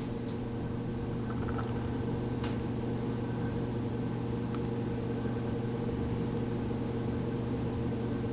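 A steady, low mechanical hum, with a few faint light clicks of small plastic parts being handled.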